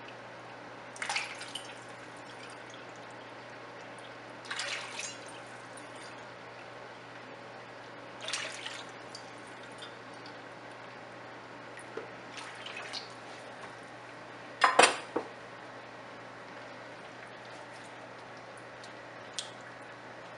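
Mutton stock poured from a jug through a small steel cup into a nonstick wok of meat, heard as a series of short splashing pours a few seconds apart. About 15 seconds in comes a louder knock of metal against the pan.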